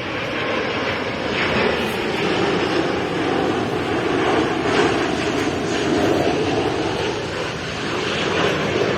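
Jet airliner flying low overhead, its engines giving a steady rushing roar that swells through the middle and eases slightly toward the end.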